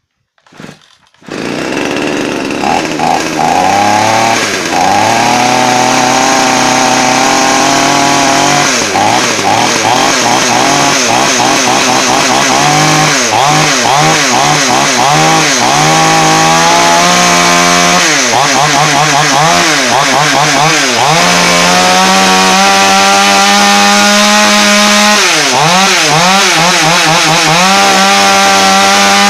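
Italy Style petrol chainsaw's two-stroke engine catching about a second in, then running and being revved up and down in repeated throttle blips, holding steadier near the end. It is running again after its dirty, clogged carburettor was cleaned and its spark plug replaced.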